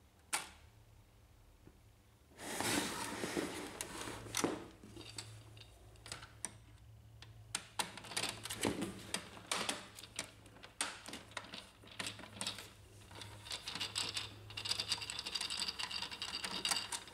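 Screwdriver working screws out of a laser printer's sheet-metal shield and plastic frame: a run of small irregular clicks, ticks and scrapes of metal on metal and plastic.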